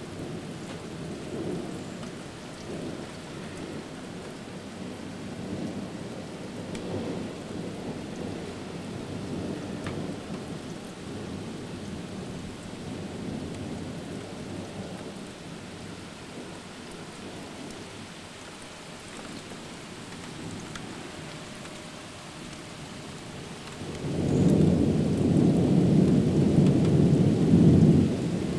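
Thunderstorm: thunder rolls and rumbles almost continuously over steady rainfall. Near the end a much louder peal of thunder rumbles for about four seconds.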